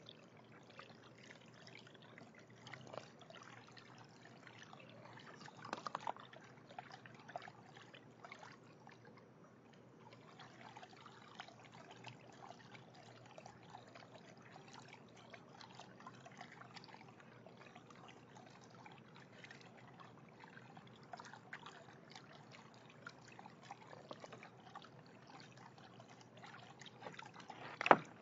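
Faint water trickling and small splashes as a raccoon paws and dabbles in the water of a half-barrel backyard fountain, with a sharp louder noise near the end.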